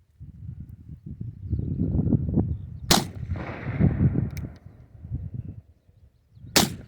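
Two shots from a Pietta-made Remington New Model Army .44 cap-and-ball revolver firing black powder paper cartridges, about three and a half seconds apart, each trailing off in a long echo. A low rumble runs underneath.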